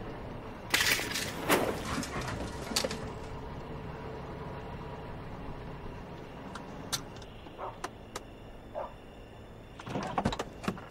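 Porsche Boxster pulling up and idling, with two loud scraping bursts about a second in and a few scattered clicks and knocks, clustered near the end.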